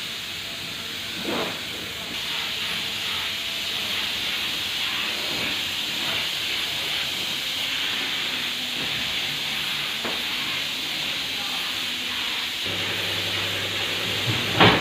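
Gravity-feed spray gun hissing steadily as compressed air atomizes clear coat over a car's bodywork; the hiss grows a little stronger about two seconds in. A low hum comes in near the end.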